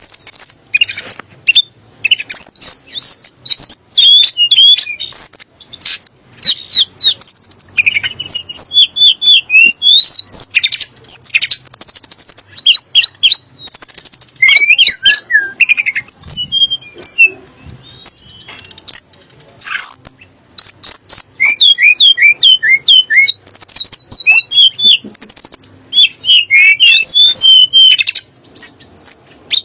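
Tledek gunung singing: a fast, varied run of chirps, short trills and sharp whistled notes, with hardly a pause.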